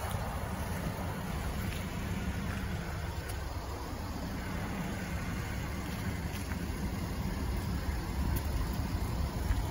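Wind buffeting a phone microphone: an uneven low rumble that grows a little louder near the end.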